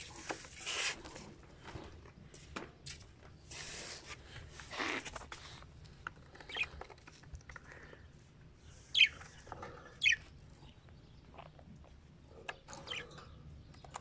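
Caged budgerigars calling: scattered short chirps and a few harsh, noisy squawks. The loudest are two sharp falling chirps about nine and ten seconds in.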